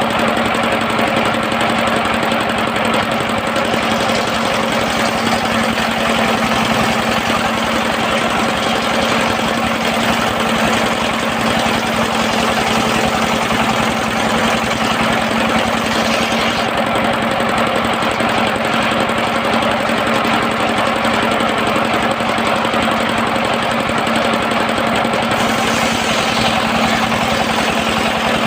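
Engine driving a sawmill's circular disc saw, running steadily at an even pitch with a constant hum.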